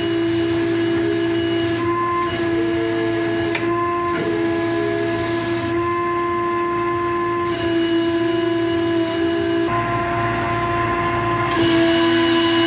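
Steady mechanical whine: a machine running with one held pitched tone and overtones, wavering slightly in pitch now and then. The hiss above it changes abruptly several times.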